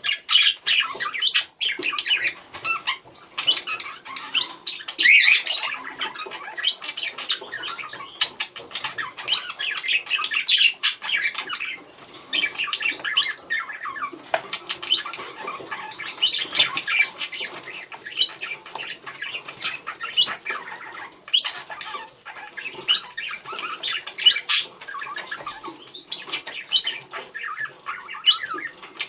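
Budgerigars chattering and calling to each other: a busy warbling chatter with short, sharp rising chirps every second or two and scattered clicks.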